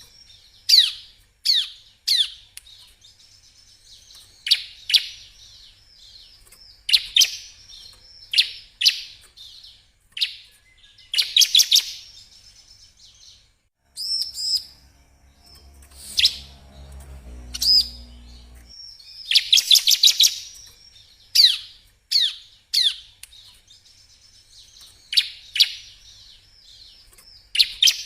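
Bar-winged prinia (ciblek) singing: short bursts of a rapid, high trill every several seconds, with sharp, high downslurred chips in between.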